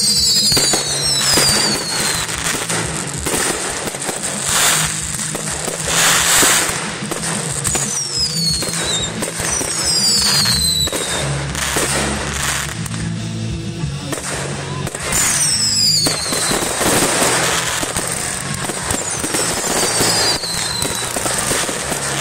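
Fireworks display going off: shells launching and bursting in a steady string of bangs and crackles, with several high whistles that fall in pitch. Music plays along underneath.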